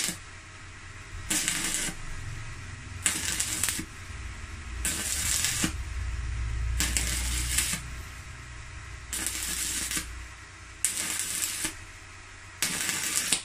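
Welding arc of a Megatec mini inverter stick welder burning a 3.2 mm electrode at a fairly high current setting, struck again and again: about seven bursts of crackling and sizzling, each lasting about a second, with short pauses between them. This is the pattern of tack welding on thick steel.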